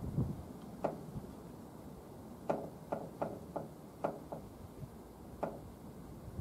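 Engine oil dripping from a snowblower's drain tube into an oil drain pan: about eight small, irregular drips as the draining tapers off to the last drops.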